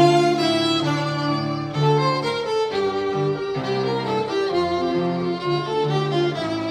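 Violin playing a melody of held, changing notes with piano accompaniment beneath.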